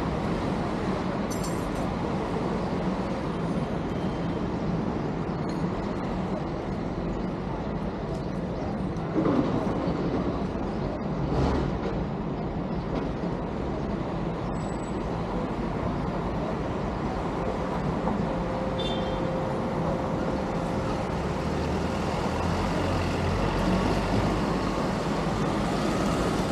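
Steady road vehicle noise, briefly louder about nine seconds in.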